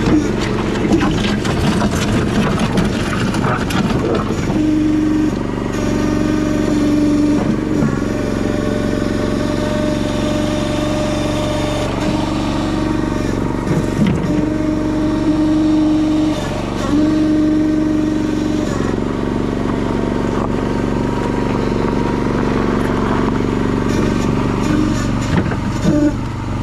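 Honda GX390 single-cylinder engine in a John Deere 60 skid steer running steadily, with a higher whine that comes in and drops out several times.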